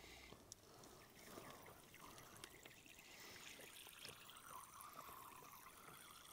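Faint squirts of goat's milk hitting a porcelain teacup during hand-milking, barely above silence.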